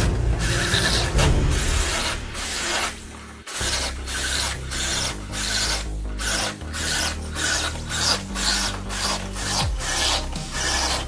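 Rhythmic back-and-forth abrasive rubbing on car bodywork, about two strokes a second, with a brief pause near the middle.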